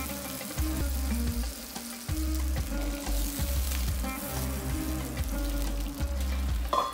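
Lamb pieces sizzling in hot oil in a pan as water pours in, then scraped and stirred with a wooden spoon, over background music.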